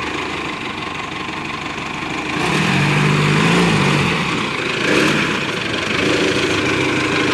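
Caterpillar 428C backhoe loader's diesel engine running, revving up about two and a half seconds in and staying louder after that.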